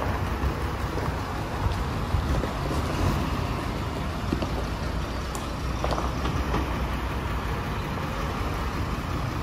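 Isuzu Forward truck's 6HK1 inline-six diesel engine running steadily as the truck moves off slowly across gravel, passing close by.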